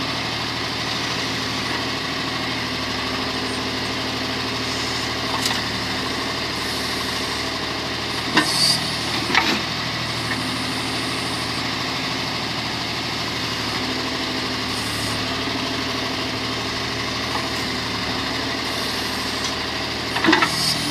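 Backhoe loader's diesel engine idling steadily, with a few short metallic clanks about eight to nine seconds in and again near the end.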